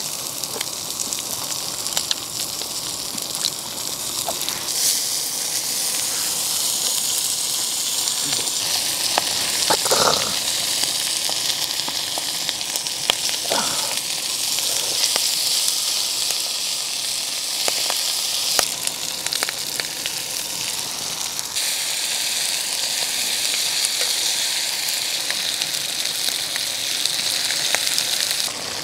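Meat sizzling as it cooks, a steady high hiss that grows louder and softer a few times. A couple of brief clinks or scrapes come in, about ten and fourteen seconds in.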